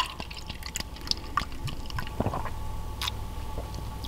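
Makgeolli being poured from a plastic bottle into a stainless steel cup, with small clicks and knocks as the bottle and cup are handled.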